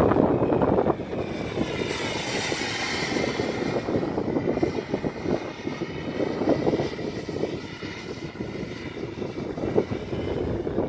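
Small jet aircraft flying past: a high-pitched whine that swells about two to three seconds in, then fades and drops in pitch as it moves away, over a steady low rumble.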